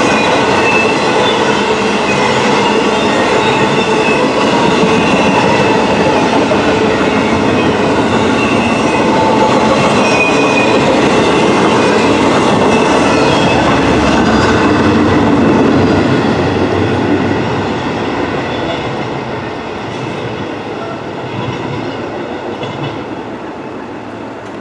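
Intermodal container cars rolling past, with steel wheels clacking on the rails and a thin high wheel squeal. The sound is steady and loud, then fades from about 16 seconds in as the train moves away.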